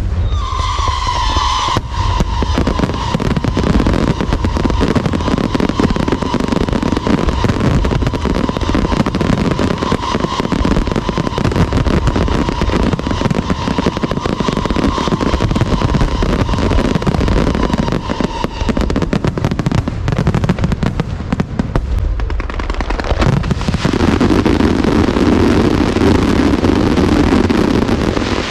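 Aerial fireworks going off in a dense, continuous barrage of crackles and bangs. A steady high whistle sounds over them from the start until about two thirds of the way through.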